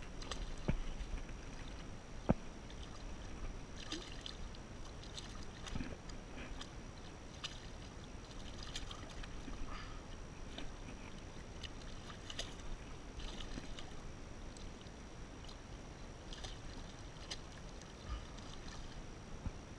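Small splashes and water lapping against a fishing kayak's hull as a hooked tarpon thrashes alongside. Short irregular splashy ticks come throughout, with one sharp knock about two seconds in.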